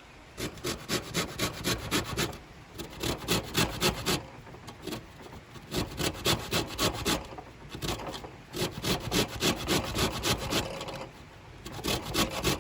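A lemon being rubbed against a fine grater to zest its peel: quick rasping strokes in several runs with short pauses between them.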